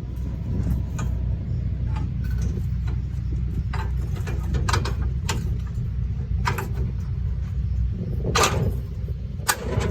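Tractor engine idling steadily, with irregular metallic clanks and knocks as a thrower wagon is hitched to the back of a hay baler; the loudest knock comes near the end.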